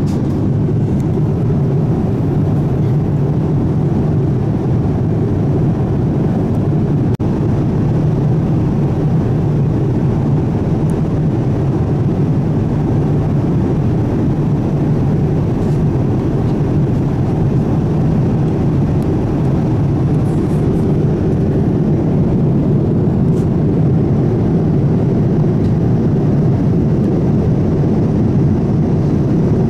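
Steady cabin noise of a Boeing 787 Dreamliner airliner in flight: an even, low rushing of engines and airflow that holds constant throughout.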